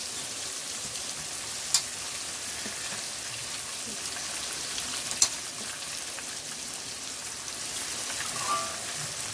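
Hot oil sizzling steadily in a cooking pot where garlic has been fried as the tempering for a fish curry, with the fish pieces just added. Two short clicks of a utensil, about two and five seconds in.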